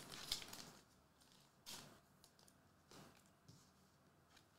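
Faint, brief rustles and scuffs of trading cards being handled and laid down on a mat, a few soft strokes spread through otherwise near silence.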